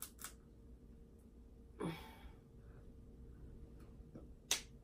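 Faint sounds of eating seafood with the hands: small clicks and rustles as shells are peeled. There is a short breathy sound about two seconds in and a sharp click near the end.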